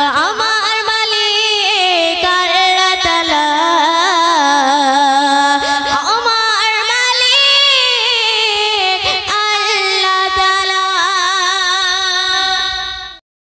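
Female voice singing a Bengali Islamic gojol into a microphone, with wavering, ornamented held notes over a steady held tone. It cuts off abruptly near the end.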